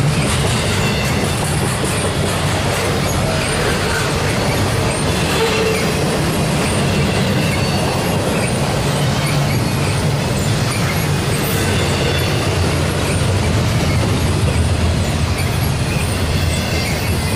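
Double-stack intermodal well cars of a freight train rolling past at track speed: a steady, loud rumble of steel wheels on rail, with faint high wheel squeals.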